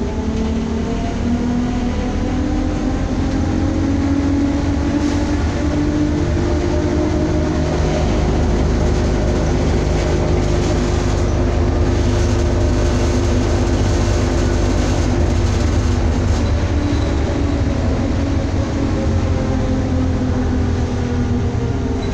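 Ikarus 415T trolleybus heard from inside the passenger cabin while moving: the electric traction motor whines, rising in pitch as the trolleybus gathers speed and falling again as it slows, over a steady rumble of road and body noise.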